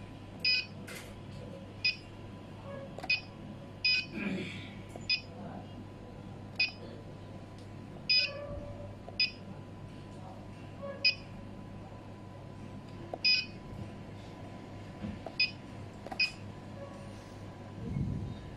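Coolmay TK HMI touchscreen beeping once for each tap on its buttons and number keypad: about a dozen short, high beeps at irregular intervals.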